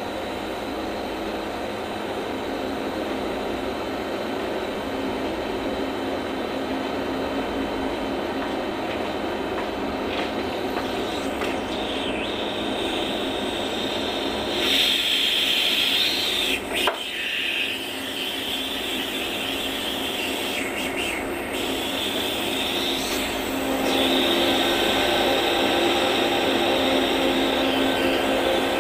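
A small electric motor running steadily with a hum and a higher whine. It gets louder from about 24 seconds in, with a short knock near the middle.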